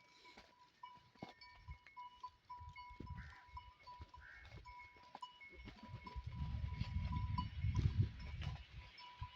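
A herd of goats moving, with scattered clicks and a faint, flickering, bell-like tone. A low rumble builds from about six seconds in and is the loudest sound.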